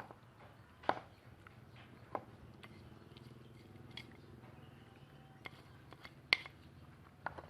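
Scattered light clicks and taps of kitchen utensils and containers as seasonings are added to a bowl of chicken, the sharpest one near the end, over a faint steady hum.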